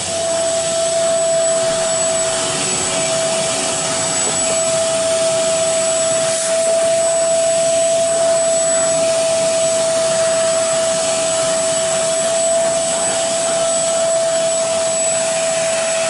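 Portable carpet spot cleaner running steadily, its motor giving a constant whine over the rush of suction as the hose nozzle draws water up off a wet carpet.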